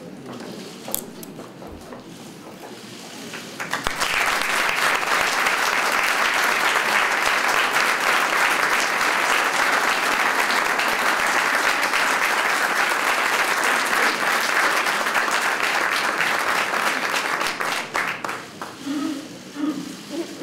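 A group of people applauding. The clapping swells suddenly about four seconds in, holds steady, and breaks up and fades out near the end.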